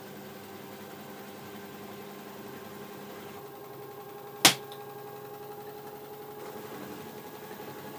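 LG F12A8CDP washer-dryer running on its direct-drive motor with a steady hum. A single sharp knock sounds about halfway through.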